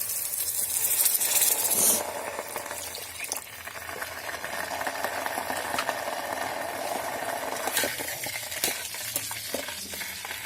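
Paneer and pea curry masala sizzling loudly in a hot pan, dropping suddenly about two seconds in to a quieter, steady sizzle as water is added, with a few light knocks of the stirring spoon.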